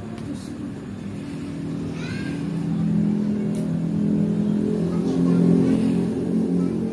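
A motor engine running steadily, growing louder through the middle and easing off near the end.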